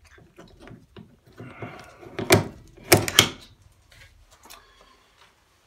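A latch handle on a Mazda Miata hardtop being worked by hand: light rattling clicks, then three sharp plastic-and-metal clacks, a little past two seconds and around three seconds in.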